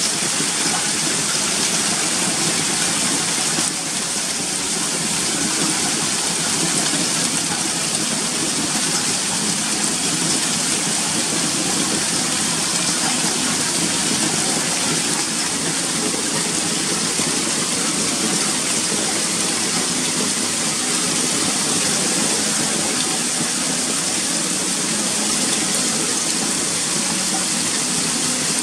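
Heavy hailstorm: hailstones and rain pelting roofs and paving in a dense, steady hiss that does not let up.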